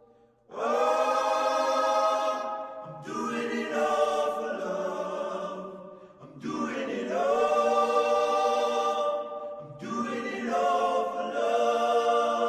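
Background music: wordless choral voices singing held chords in four long, swelling phrases.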